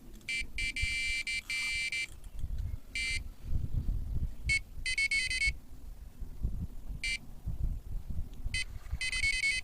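Electronic carp bite alarm beeping in irregular bursts, single beeps and runs of rapid beeps, as line moves over it. Low rumbling noise underneath.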